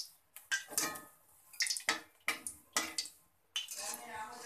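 A wire skimmer and steel spatula scraping and knocking against a steel frying pan, in a series of short strokes, as fried fritters are lifted out of the oil.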